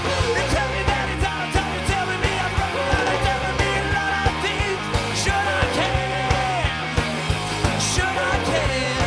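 Live pop/rock band playing a loud song: drums keeping a steady beat under guitars and bass, with a wavering melody line held over the top.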